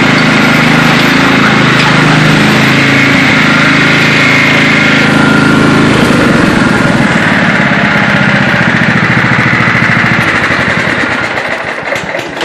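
Riding lawn mower engine, modified for off-road use, running hard at speed. It winds down and fades out over the last couple of seconds.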